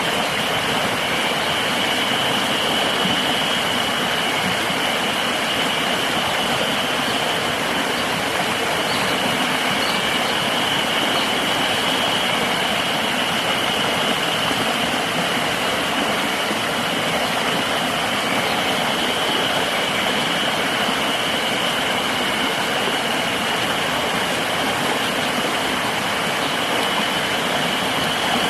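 Steady rushing of a flowing river, with a continuous high-pitched insect drone held over it.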